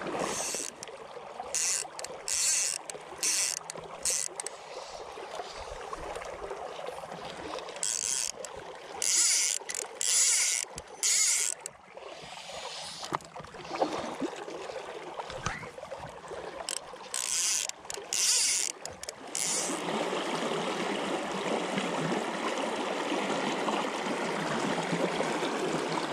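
Legs wading through shallow river water, splashing in short bursts stride by stride with pauses between. From about twenty seconds in, this gives way to a steady rush of flowing water around the wader.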